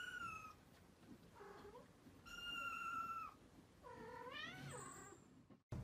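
Kittens mewing faintly: a few thin, high-pitched mews about a second apart, the last one rising and then falling, before the sound cuts off near the end.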